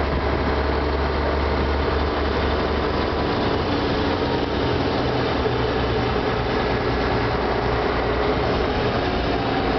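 Diesel truck engine running steadily under way, heard from on board as a constant low drone; the engine note changes about three and a half seconds in.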